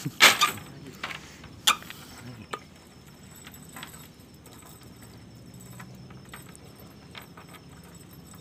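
Wet cast net set down and shaken, water splashing and slapping in three sharp bursts in the first few seconds, then faint rustling and small clicks as the mesh is handled and fish are picked out. Insects chirp steadily throughout.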